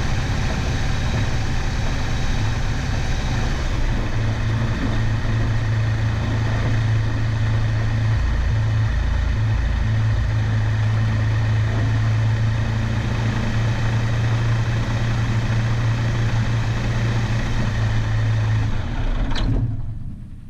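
Aeroprakt A22 ultralight's engine idling steadily with the propeller turning as the plane rolls slowly on grass, then shut down near the end, the sound falling away quickly as the propeller stops.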